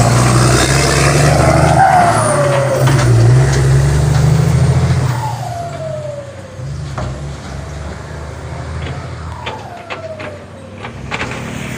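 Truck engine running, loud for about the first five seconds and then dropping quieter, with three short falling tones spaced a few seconds apart.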